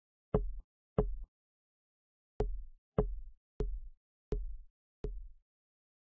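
Footsteps on a hard floor: seven sharp, dull knocks at an unhurried walking pace, with a longer pause after the second step.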